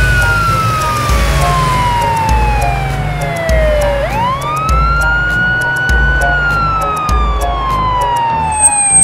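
Police siren wailing: a slow fall in pitch, a quick rise about four seconds in, then another slow fall. Underneath runs background music with a steady beat.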